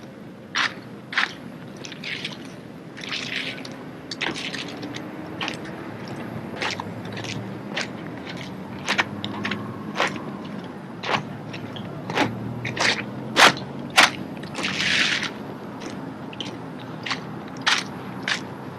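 Sharp, irregular slaps and clacks of drill rifles being handled, caught and slapped during rifle drill, loudest twice about 13 and 14 seconds in, over a low steady hum.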